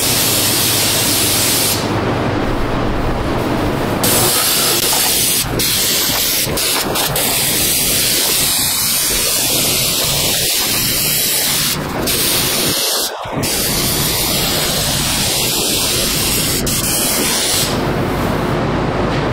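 Undercoating spray gun with a wand spraying Fluid Film oil rust-proofing onto a truck's underbody: a loud, continuous hiss that dips briefly twice a little past the middle.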